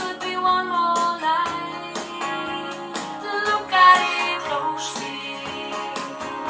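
Recorded song playing through home hi-fi loudspeakers: a woman singing over plucked acoustic guitar.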